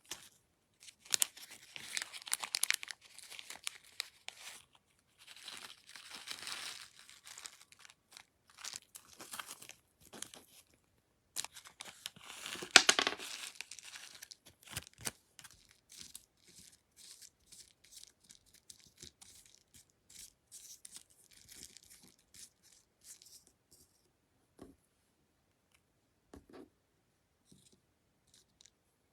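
Slime being squeezed, stretched and poked by hand, making crackling, popping and tearing sounds in irregular bursts, busiest in the first half and thinning to scattered small clicks near the end.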